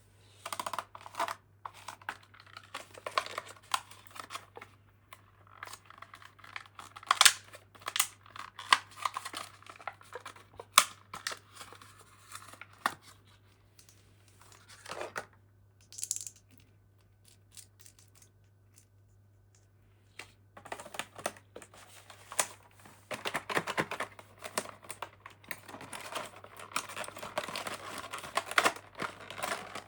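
Toy packaging being opened by hand: irregular crinkling, tearing and small clicks, with a quiet pause of a few seconds past the middle.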